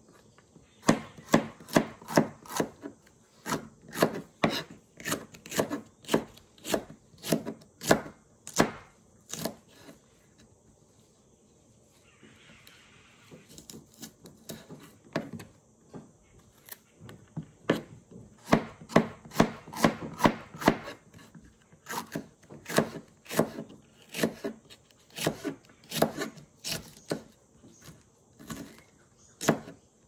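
Kitchen knife slicing pimenta de cheiro peppers on a plastic cutting board: a steady run of sharp taps of the blade on the board, about two or three a second, with a pause of a few seconds around the middle.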